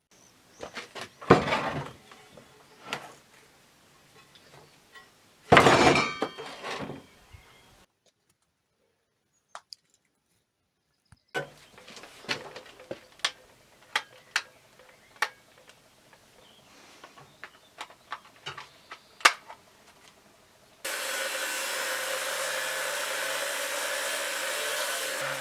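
Workshop sounds: two loud scraping bursts, then scattered sharp taps and clicks, then a machine starts running steadily with a low hum about 21 seconds in.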